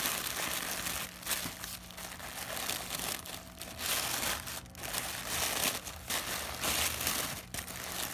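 Packing wrap crinkling and rustling in irregular handfuls as a boxed baseball cap is unwrapped, with a few brief pauses.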